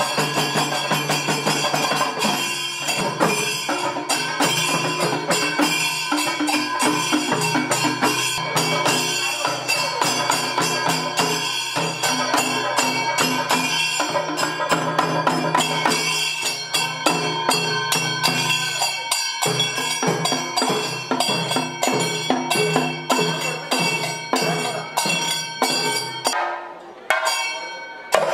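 Kalamezhuthu pattu, the Kerala temple ritual song music: sustained pitched tones over dense, rapid percussion strokes. A low steady drone runs under it and stops about two seconds before the end.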